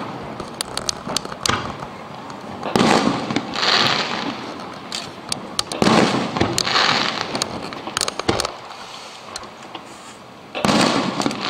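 Aerial firework shells bursting one after another, each a loud boom with a rolling echo, with sharp crackles in between. A quieter lull comes before one more burst near the end.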